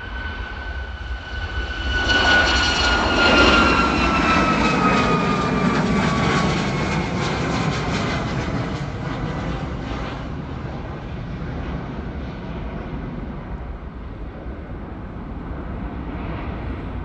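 Boeing 737 MAX 8's CFM LEAP-1B turbofan engines at takeoff thrust. A jet rumble with a high whine swells about two seconds in. The whine then slides down in pitch as the airliner passes and the sound slowly fades.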